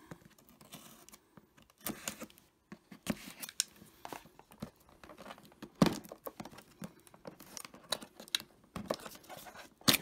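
Cardboard box being opened: a utility knife slitting along the lid's edge, then the cardboard scraping and tearing as the lid is pried up, in scattered short scrapes and snaps, the sharpest about six seconds in and just before the end.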